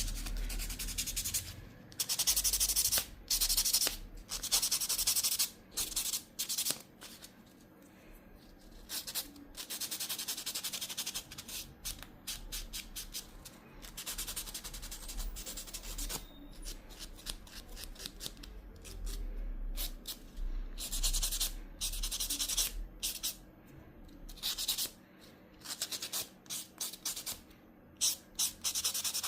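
A fingernail being filed by hand with a nail file to smooth and shape it: runs of quick scratchy back-and-forth strokes with short pauses between them.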